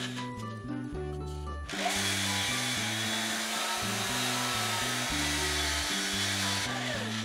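A cordless drill spins a sanding disc against a turning wooden bowl, a steady whirring hiss that starts about two seconds in and stops near the end. Background music with a bass line plays throughout.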